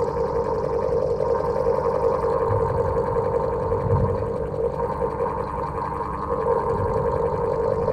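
An old electric fan running steadily with a constant hum and a rattly low drone.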